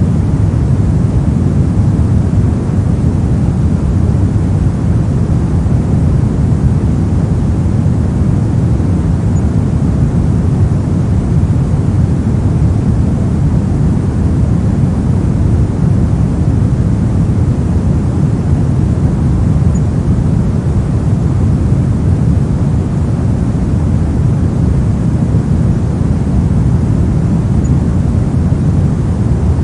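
Steady synthetic pink noise: an even, unchanging rushing hiss weighted toward the low end.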